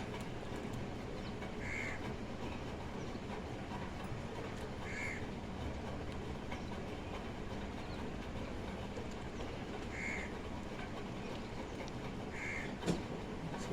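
Crows cawing: four short single caws a few seconds apart over a steady low background noise, with a sharp knock near the end.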